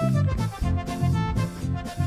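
Upbeat, bouncy background music with a steady bass beat, in a comic swing style.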